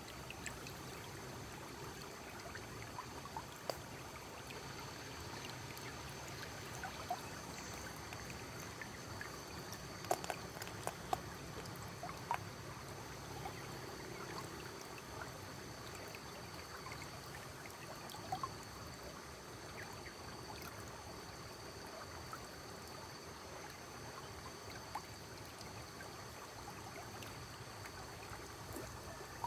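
Small stream of water trickling and flowing steadily, with scattered small clicks and drips throughout.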